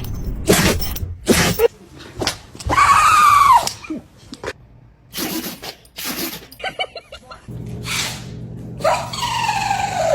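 Dogs sneezing: a string of short, sharp sneezes one after another. Two longer pitched cries come about three seconds in and again near the end, the second falling in pitch.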